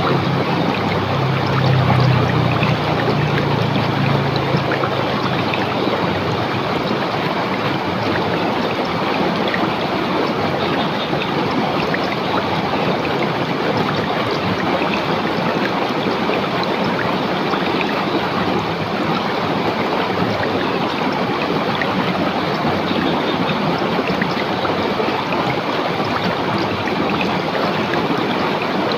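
River water rushing and splashing steadily over rocks. A low hum sits under it for the first few seconds.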